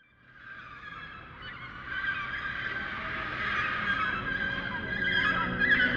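A flock of birds calling, many overlapping honking calls, fading in over the first two seconds.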